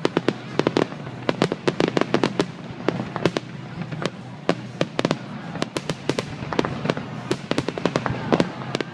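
Aerial fireworks display going off in a dense barrage: sharp bangs and crackling reports, several a second without letup.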